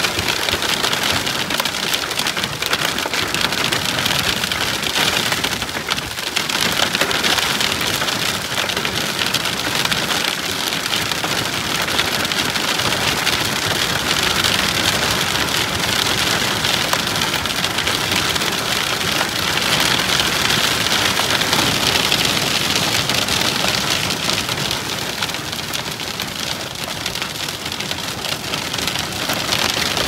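Heavy wind-driven rain from a supercell's downpour pelting a vehicle, a dense, steady patter and hiss that stays even throughout.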